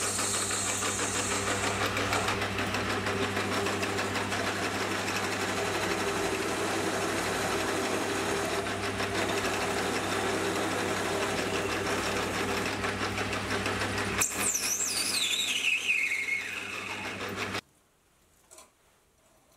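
Hafco AL250G metal lathe running steadily with a hum while turning a cast brass hammer face. About two-thirds of the way through, a high whine glides down in pitch over a couple of seconds, and the lathe sound cuts off abruptly near the end.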